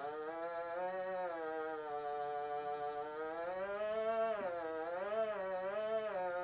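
A man's voice humming one long unbroken note. The pitch sags, then climbs slowly, dips sharply past the middle and wavers up and down about once a second near the end.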